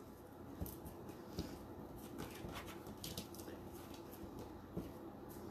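Faint scattered clicks and rustles of poly burlap petals and plastic zip ties being handled on a plastic wreath board.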